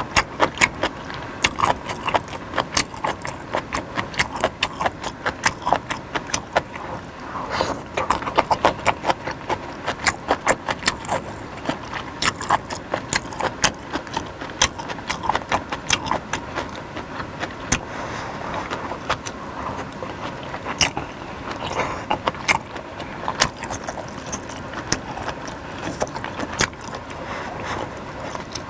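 Close-miked eating of beef and noodle soup: wet chewing and mouth noises with many short, irregular clicks and smacks, several a second.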